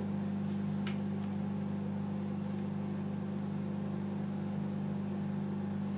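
Steady low electrical hum, with one brief click about a second in.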